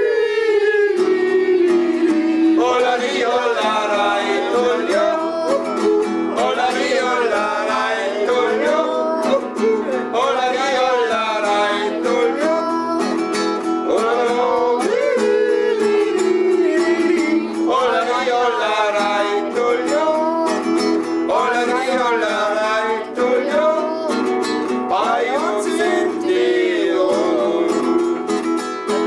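A German folk song sung by male voices to acoustic guitar accompaniment.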